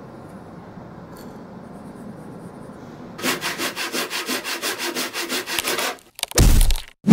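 Rapid back-and-forth rubbing on wood, about five strokes a second for roughly three seconds, starting a few seconds in. A short, loud, low bump follows near the end.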